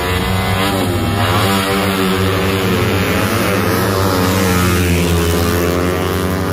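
Racing motorcycle engines revving hard at full throttle, the pitch climbing, dropping and climbing again as the bikes run down the drag strip.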